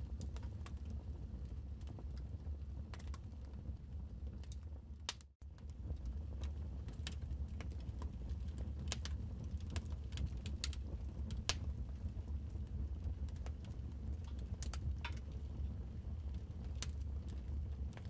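Wood fire crackling in a fireplace: irregular sharp pops and snaps over a low steady rumble. The sound cuts out for a split second about five seconds in, then resumes.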